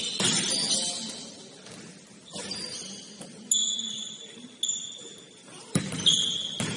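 Basketball game on an indoor court: the ball bouncing in a few sharp knocks, with sneakers squeaking on the floor several times in the second half.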